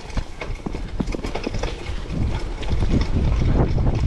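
Mountain bike clattering over a rough trail: irregular knocks and rattles from the tyres, frame and chain over rocks and roots, over a steady low rumble.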